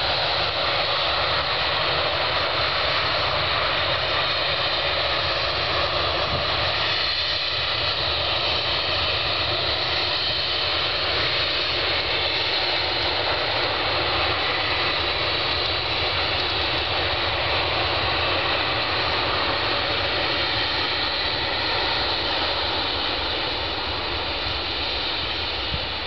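Airbus A320's jet engines running at taxi power: a steady jet rumble and whine, easing off slightly near the end.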